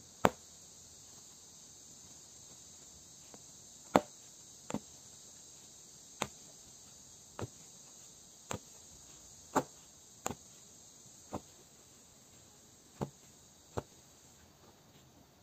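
Punch needle being pushed through embroidery cloth stretched taut in a hoop: about a dozen short sharp clicks at irregular intervals, roughly one a second, over a faint steady high hiss.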